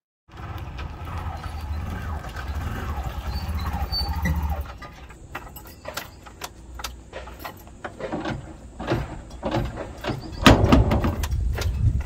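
A steady low rumble for about the first four seconds, then a run of sharp clacks, two or three a second and loudest near the end, from an auto-rickshaw's hand-pull starter lever being yanked again and again without the engine catching: the auto-rickshaw has broken down and won't start.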